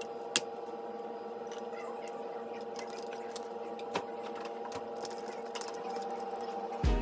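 A steady electrical or mechanical hum with scattered light clinks and clicks.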